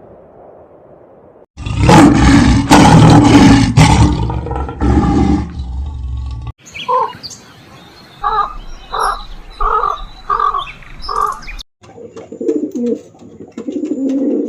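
A run of different animal calls: a loud, rough roar for about five seconds, then after a sudden break a series of about seven short pitched calls in an even rhythm, then lower calls from another animal near the end.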